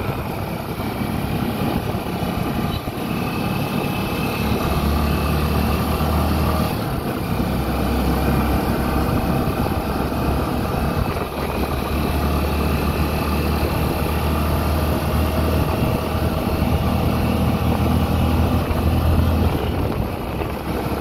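Vehicle engine running steadily during a drive, with a low hum that grows stronger about four seconds in and eases near the end.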